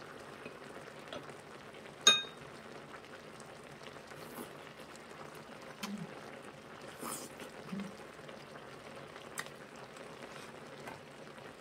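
Braised kimchi and pork simmering in a pan at the table, a steady soft bubbling hiss. About two seconds in, metal chopsticks strike a dish once with a sharp ringing clink, followed by a few soft eating sounds.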